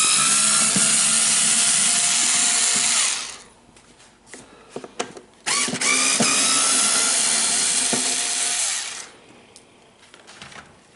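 Cordless power screwdriver running twice, about three seconds each time, backing out the last two cover screws. A few small clicks come between the two runs.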